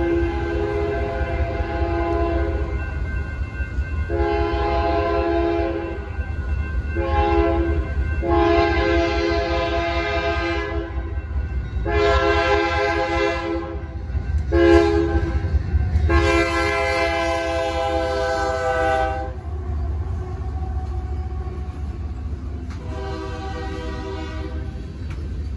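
Lead Union Pacific GE AC4400CW diesel locomotive sounding its air horn for the grade crossing in a series of long and short blasts, several chime tones at once, over the low rumble of the approaching freight train. Toward the end the freight cars are rolling through the crossing.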